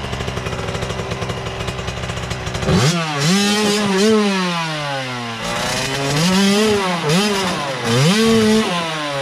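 Small two-stroke Suzuki dirt bike engine running at a steady idle, then, about three seconds in, revved up and down again and again as the bike is worked up a rocky climb.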